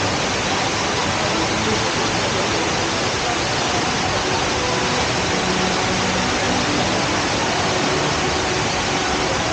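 Steady rush of a large man-made indoor waterfall, Jewel Changi's Rain Vortex, its water pouring down into the pool below.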